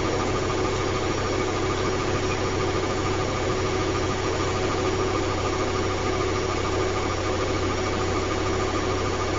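Steady machine hum: even noise with a few constant tones, unchanging throughout.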